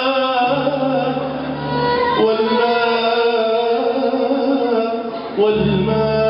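A man singing into a microphone in long, held, wavering notes over a steady instrumental backing, amplified through a PA in a large hall.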